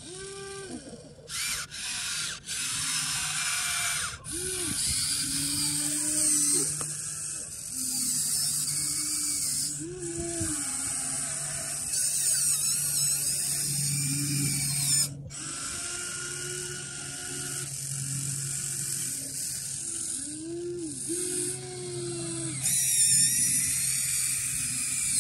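Electric motors and gearboxes of a Huina 1593 RC excavator whining in stop-start runs as the arm and bucket dig and swing. Each run starts and stops abruptly, with the whine rising and falling in pitch.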